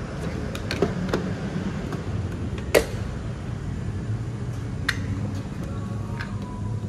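A Type 1 EV charging connector is unplugged from an electric car's charge port and handled. It gives sharp plastic clicks and knocks, a few close together about a second in and the loudest just before the middle, over a steady low hum.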